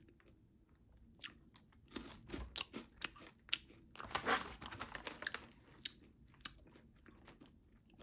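Crunchy baked black bean snack crisps being bitten and chewed, in a run of sharp crunches that is loudest and densest about four to five seconds in.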